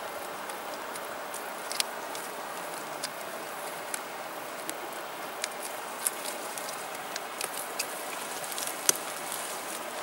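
Hands handling a strip of rubber inner tube as it is stretched and wrapped around a green branch: scattered small clicks and snaps, the sharpest about nine seconds in, over a steady outdoor hiss.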